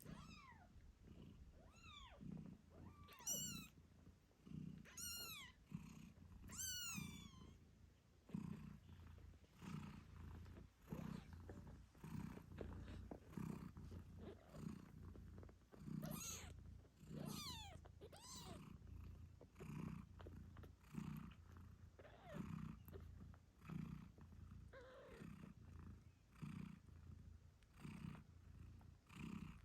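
British shorthair mother cat purring, a low rumble that swells and fades about once a second. Her newborn kittens give high, thin squeaks that fall in pitch, several in the first seven seconds and a few more around the middle.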